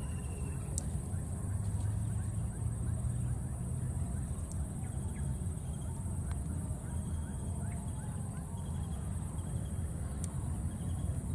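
Outdoor ambience: a steady high-pitched insect drone over a low rumble, with faint scattered chirps and a few sharp clicks.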